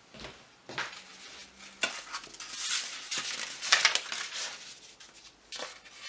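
Stiff kraft paper rustling and crinkling as it is handled and folded around a metal jar lid, in several bursts, the loudest near the middle, with a few sharp clicks.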